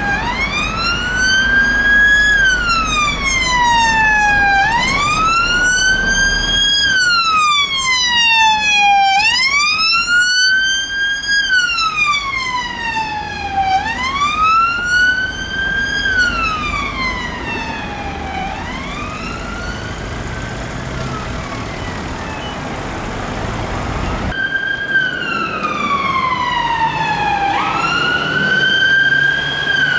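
Siren of a police Vauxhall Astra patrol car on a wail, rising and falling about every two seconds and fading as the car moves away. After a cut, the siren of a VW Tiguan ambulance response car: a slow falling sweep that snaps back up to high pitch.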